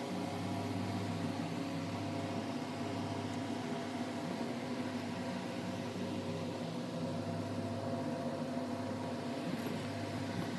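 Steady machine hum made of several constant tones over a light hiss, unchanging throughout, like a motor or fan running.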